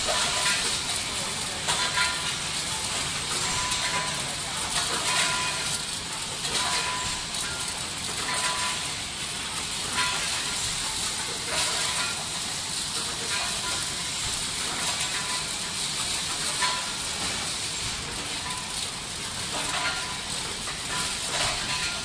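Bottled-water production line machinery running as plastic bottles move along a conveyor: a steady hiss, with a short ringing tone repeating about every one and a half to two seconds as the machine cycles.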